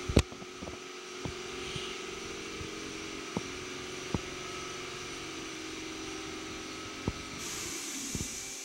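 Steady hum of a powered-up CNC turning center, its pumps and fans running with several fixed tones, broken by a few sharp clicks. A higher hiss joins about seven and a half seconds in.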